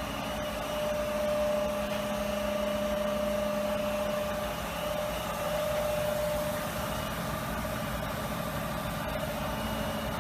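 Haas EC-1600YZT horizontal machining center running with its through-spindle coolant on: a steady mechanical hum with a constant whine over it.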